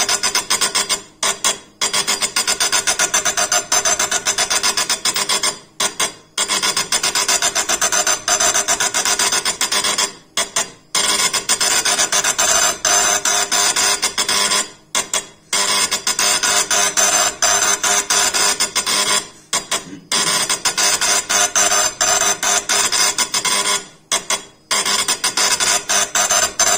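Magnum 3 impact engraving machine hammering a granite slab, its needle striking the stone in a fast, even rasping patter. About every four to five seconds the striking stops twice in quick succession for a moment, then carries on.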